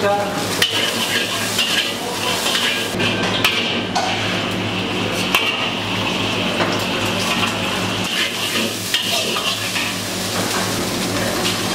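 Metal spatula scraping and clanking against a wok as egg, chicken and vegetables are stir-fried, with frequent sharp clicks of metal on metal. Under it run frying sizzle and a steady low hum.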